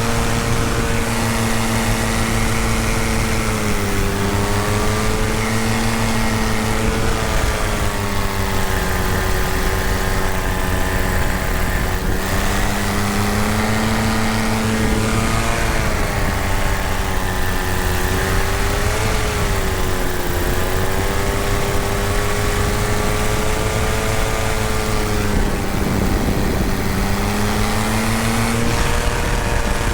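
Paramotor engine and propeller running steadily in flight, the pitch dipping slightly and coming back up several times.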